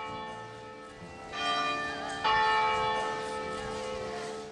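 Church bells ringing: struck about a second in and again about two seconds in, each strike leaving a long, slowly fading hum of many tones.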